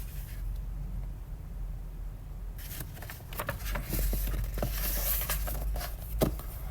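Paper rustling with a few soft clicks as a picture book's page is handled and turned, over a low steady hum. The rustling starts a little over two and a half seconds in and stops near the end.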